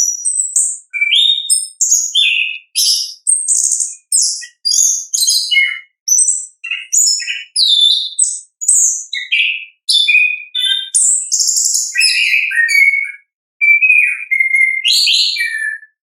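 Chestnut-capped thrush (anis kembang) singing its full, varied song: rapid high whistles, trills and chattering notes in short phrases about one a second, stopping just before the end.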